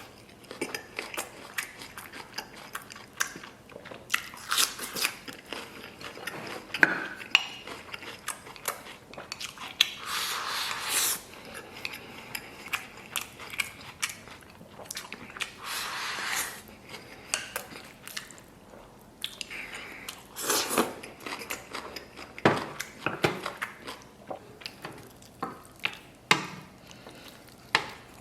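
Close-miked eating of soy-braised beef ribs: wet chewing and biting, with frequent smacking clicks and a few longer noisy stretches as meat is gnawed off the bone.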